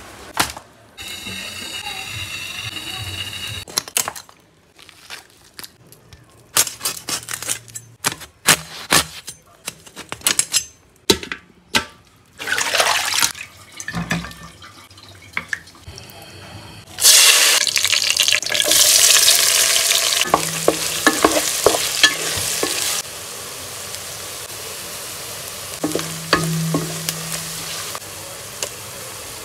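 A run of food-preparation sounds: scattered sharp knocks and clicks, then running water while duck meat is washed by hand, then sliced onions frying in hot oil with a steady sizzle over the last few seconds.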